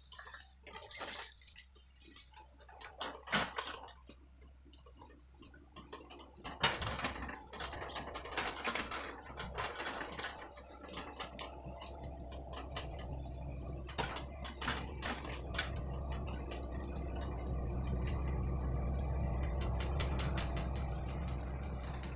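Hitachi hydraulic excavator's diesel engine running with a steady low hum, growing louder as the machine tracks closer. Scattered sharp knocks and cracks sound over it.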